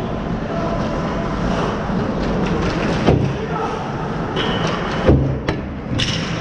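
Ice hockey play right at the goal net: skate blades scraping the ice and sticks clacking. Two heavy thumps come about three and five seconds in as players scramble around the net, with sharp stick-and-puck clicks near the end.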